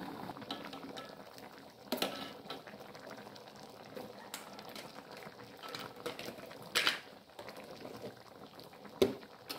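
Curry simmering and bubbling in a metal wok while a metal ladle stirs it, with a few sharp knocks of the ladle against the wok.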